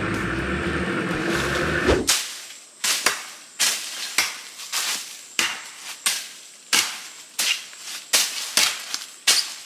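A boat motor drones steadily and then cuts off abruptly about two seconds in. After that comes a regular run of sharp chopping strikes, about one and a half a second, as a man hacks at the ground to clear it.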